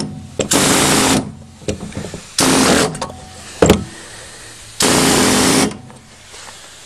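A handheld power tool run in three short bursts, each under a second, cutting away the metal of a car's fuel filler neck opening to widen it for a diesel nozzle. There is a sharp click about two-thirds of the way through, with light scraping between the bursts.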